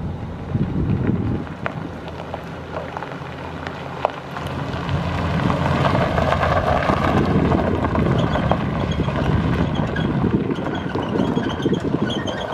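Chevrolet Silverado 2500HD's 6.0-litre gasoline V8 running, with wind buffeting the microphone; the engine gets louder from about four and a half seconds in and stays up.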